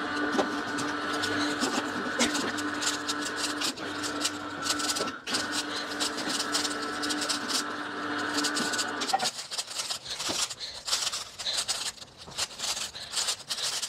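Red vertical slow juicer's motor running with a steady hum while broccoli and greens are pressed down its chute and crushed, crackling as the auger breaks them up. About nine seconds in the hum stops suddenly, leaving scattered crackles and clicks.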